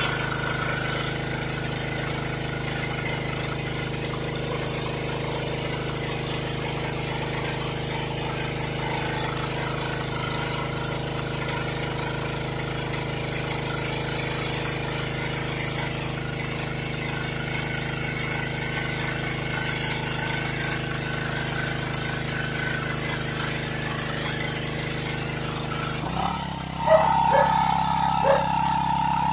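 Pressure washer running steadily, its motor and pump giving a constant hum under the hiss of the spray. About 26 seconds in the sound changes abruptly: the low hum drops away, a higher steady tone takes over, and there are a few knocks.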